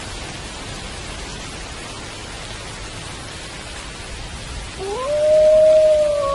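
Steady rain falling; near the end a wolf begins to howl, its call rising sharply and then held on one steady pitch.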